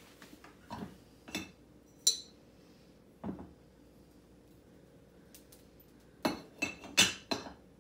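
Ceramic dinosaur-shaped cookie jar: its lid clinks against the jar as it is lifted off, then several sharp clinks as it is set back on near the end.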